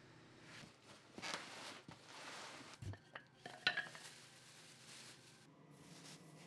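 Faint handling of hard objects: rustles and light knocks, with one sharp metallic clink about three and a half seconds in.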